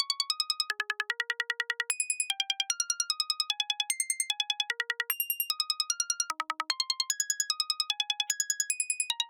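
Synthesized sound effect from a VCV Rack software modular synth patch: fast, evenly pulsed electronic bleeps, about eight or nine a second, hopping to a new pitch every few pulses and leaping between low and high notes, the chirpy, bubbly kind of effect used in forest psytrance.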